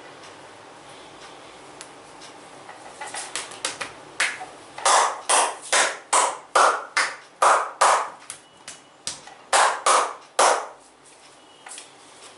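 Percussive massage strokes: hands slapping rhythmically on the body, starting as light quick taps and building to about a dozen sharp, loud slaps at roughly two to three a second, with a brief pause before the last few.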